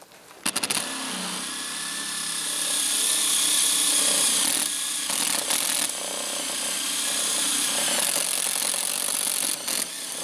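Cordless drill boring holes through the car's trunk lid to mount a rear wing, running steadily from about half a second in with two brief pauses, one near the middle and one near the end.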